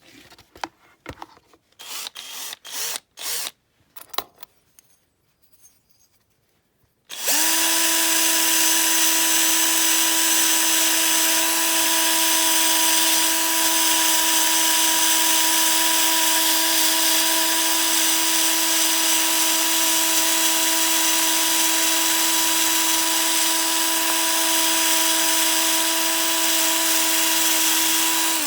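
A few short handling noises, then about seven seconds in a high-speed rotary power tool spins up. It runs steadily at one pitch with a hiss, cleaning the remaining paint off caustic-stripped die-cast zinc car bodies, and cuts off at the end.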